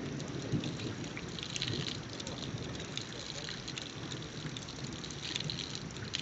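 Steady rain falling, with scattered drops pattering close by.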